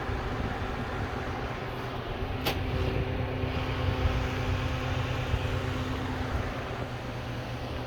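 Electric fan running with a steady hum and rush of air. There is a sharp click about two and a half seconds in, after which the hum grows stronger.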